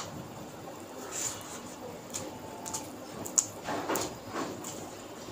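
Eating by hand: soft wet smacks and clicks of chewing, and fingers squishing rice mixed with egg curry, a scattered string of small noises.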